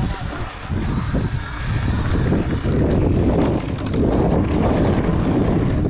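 Wind buffeting the camera microphone, with a low, steady rumble from riding a mountain bike along a dirt trail.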